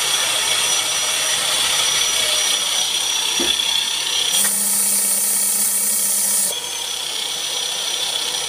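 Bosch electric drill clamped in a vise, running steadily at low speed and spinning a sanding disc on an aluminium plate, used to sand the end of a sheet-steel exhaust cone flat. A harsher hiss sounds for about two seconds in the middle, and the drill cuts off suddenly at the end.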